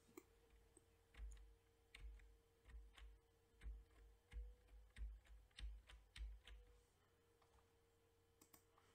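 Faint clicks of a computer keyboard's F9 key pressed again and again, about a dozen presses roughly half a second apart, each one re-running a random-number calculation. A faint steady hum runs underneath.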